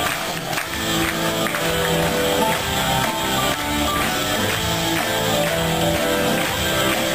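Music with held pitched notes and a steady beat of percussion strikes.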